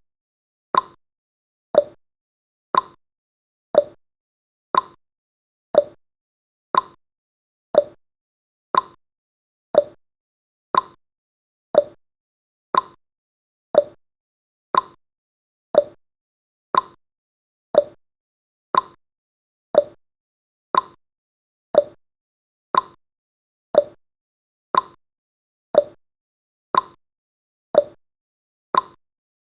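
Countdown timer's ticking sound effect: one short, sharp tick every second, alternating between a slightly higher and a slightly lower tone like a clock's tick-tock.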